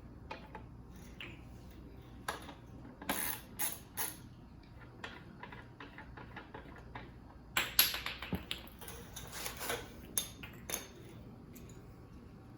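Scattered metal clicks and clinks of a socket wrench and loose parts as the chain slider is unbolted from the swingarm, with a busier run of clatter about eight seconds in.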